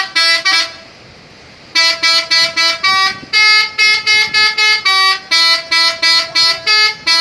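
Telolet musical air horn of a PO Haryanto bus playing a tune of short, loud toots at changing pitches. Three quick toots at the start, a pause of about a second, then a rapid run of notes, about three a second.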